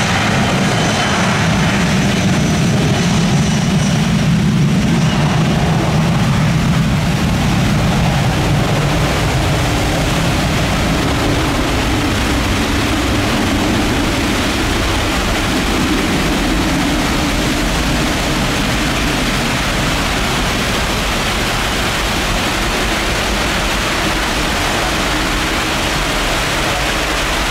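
Jet airliner's engines running loud as it rolls down a rain-soaked runway, the low rumble strongest in the first several seconds and fading after, under a steady hiss of heavy rain.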